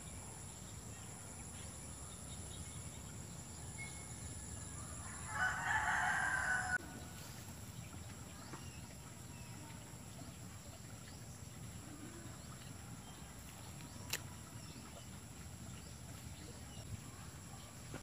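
A rooster crowing once, about five seconds in, lasting about a second and a half.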